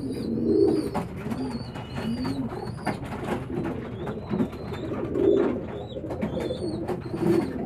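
Domestic pigeons cooing again and again, with many short, high, wavy chirps over the top.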